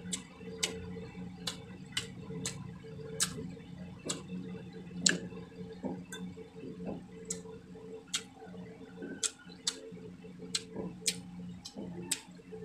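Close-miked chewing and lip-smacking while eating grilled fish and rice by hand: sharp wet mouth clicks, irregular, about one or two a second, over a steady low hum.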